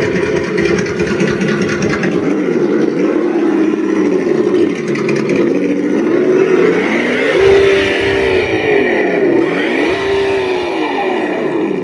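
Axial Bomber RC rock crawler's electronic engine sound kit playing a simulated engine note through its small speaker. The note revs up and drops back several times as the truck is driven, with the most distinct swells in the second half.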